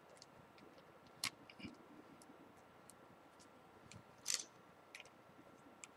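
Faint, scattered small clicks and taps of a smartphone's internal parts and ribbon cable being handled, with a sharp click about a second in and a louder one just after four seconds.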